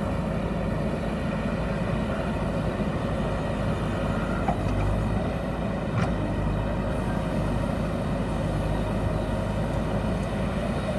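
JCB backhoe loader's diesel engine running steadily as its backhoe arm pushes a concrete culvert pipe into place.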